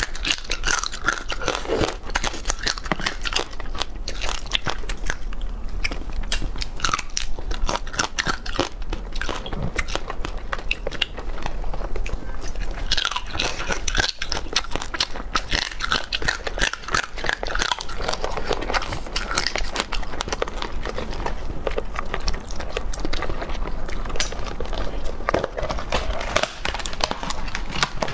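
Close-miked crunching and chewing of raw marinated small crab, the shell cracking between the teeth in many quick, irregular crunches.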